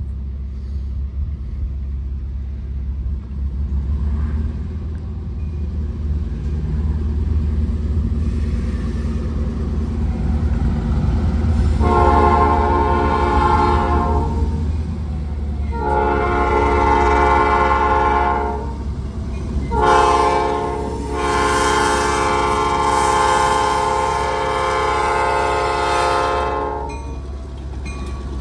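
RJ Corman diesel locomotive's multi-chime horn sounding the grade-crossing signal as it approaches: a long blast, a second long blast, a short one, then a final long blast, over a steady low rumble.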